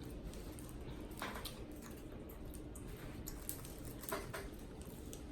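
Mukbang eating sounds from a seafood boil: a few short, wet mouth and hand noises as boiled shrimp are chewed and handled, with no speech.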